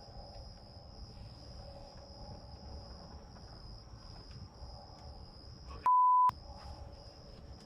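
Steady high insect chirring with faint low outdoor rustle. About six seconds in, a short loud pure-tone beep briefly replaces all other sound: a censor bleep dubbed in during editing.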